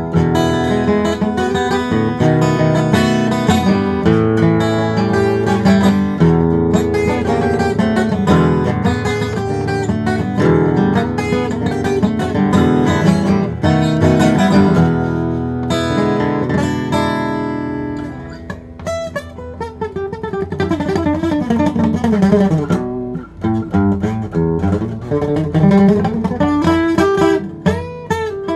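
Gibson SJ200 acoustic guitar played solo on old strings: full strummed chords for most of the first two-thirds, then single-note runs with notes sliding and bending in pitch.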